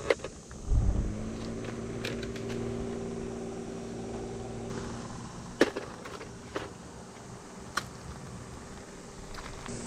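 A steady low droning hum, beginning with a thump about a second in and fading out about halfway through, followed by a few sharp, spaced clicks of a knife cutting vegetables on a board.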